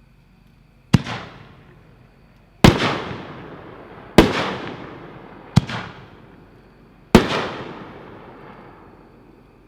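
Heavyweight 5-inch Ghost Supercans aerial shells being fired: five sharp booms over about six seconds, each trailing off in a long rolling echo.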